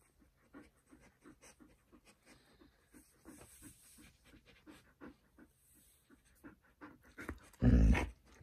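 Alaskan Malamute panting close by, soft breaths about three a second. Near the end, one brief, much louder low-pitched burst.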